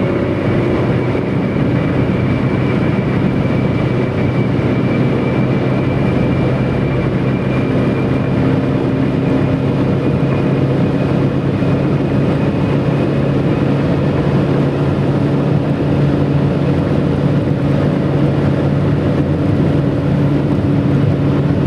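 Tyre whistle from a Mitsubishi Lancer 9's stock Bridgestone Turanza tyres at highway speed: a steady, airplane-like whistling tone over constant road roar, the highest tone fading away over the first half.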